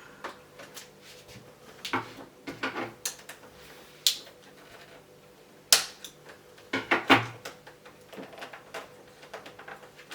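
Small plastic parts and packaging being handled: scattered clicks, taps and knocks, a few sharper ones about four, six and seven seconds in.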